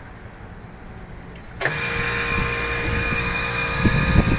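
Rooftop air-conditioning condensing unit machinery, quiet at first, then coming in suddenly about one and a half seconds in and running steadily with a whine.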